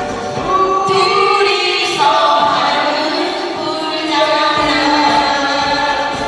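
Women singing a pop song into microphones over amplified musical accompaniment, holding long notes.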